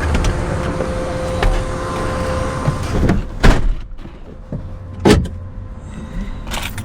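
Car running with a steady low rumble and hum, broken by two sharp loud thumps about three and a half and five seconds in.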